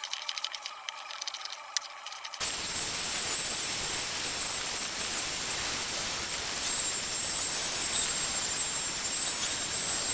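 Handheld belt sander running on a wooden tabletop: a steady rushing noise with a high, slightly wavering whine that starts abruptly about two and a half seconds in. Before it, only faint light clicks.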